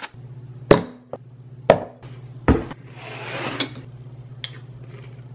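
Kitchen handling sounds of a spoon and dishes at a wooden cutlery drawer: three sharp knocks about a second apart, then a short rustling noise, over a steady low hum.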